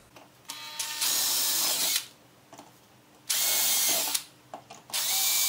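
Makita cordless drill whirring in three short runs of about a second each, drilling the screw holes through a plastic speaker pod.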